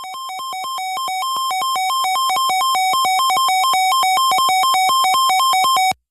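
Weather alert radio alarm: an electronic two-tone warble switching rapidly between a lower and a higher pitch, growing steadily louder and then cutting off sharply near the end. It signals an incoming severe thunderstorm warning.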